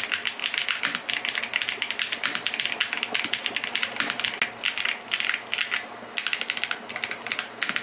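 Fast typing on a Gamen Titan VI gasket-mount mechanical keyboard with Otemu linear silver switches: a dense, continuous run of keystroke clacks with a couple of brief pauses.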